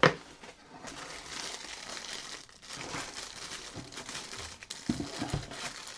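Crinkling and rustling of packaging as a set of large thread spools is handled, with a sharp tap at the start and a few soft knocks near the end.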